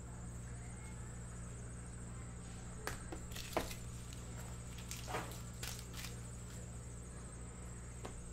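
Trading cards and clear plastic card holders being handled on a table: a few light clicks and rustles between about three and six seconds in, over a steady low hum.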